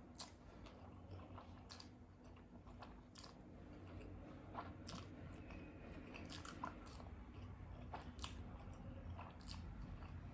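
Faint close-up chewing of a mouthful of instant noodles with egg and cheese: soft wet mouth clicks and smacks scattered throughout, over a low steady hum.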